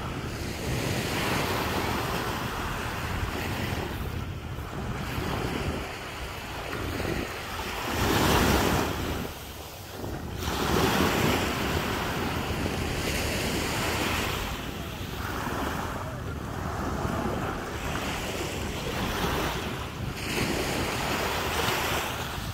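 Small waves breaking and washing up a sandy shore, the surf rising and falling in surges, loudest about 8 and 11 seconds in, with wind buffeting the microphone.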